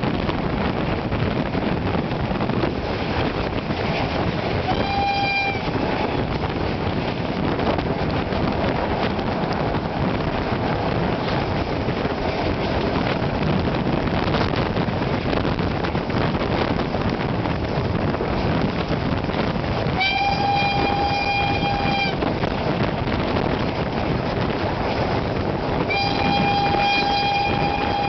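Ol-49 steam locomotive's whistle blown three times: a short toot, then a blast of about two seconds, then a longer blast near the end. Underneath is the steady rush of the moving train and the wind, heard from an open carriage window.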